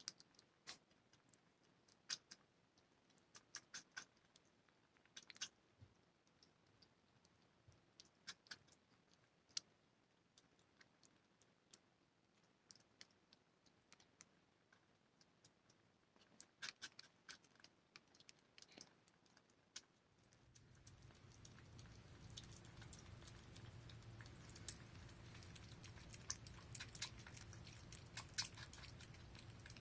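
Faint, scattered small clicks and crunches of kittens eating. About twenty seconds in a low steady hum starts, and the clicks come more often.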